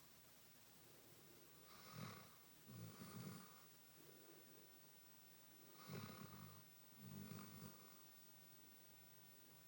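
Basset hound snoring softly in deep sleep: two rounds of snores about four seconds apart, each a pair of short snoring breaths about a second apart.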